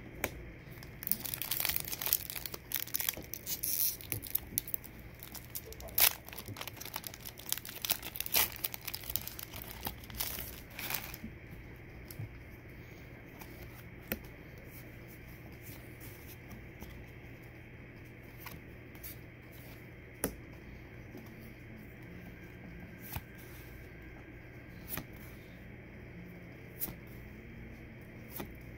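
Foil Pokémon TCG booster pack wrapper crinkling and tearing open for about ten seconds, then the cards being flipped one at a time, a light snap every couple of seconds.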